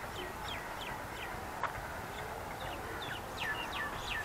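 Small birds chirping: many short, high chirps that fall in pitch, coming in quick runs over a steady outdoor hiss. A single sharp click sounds about a second and a half in.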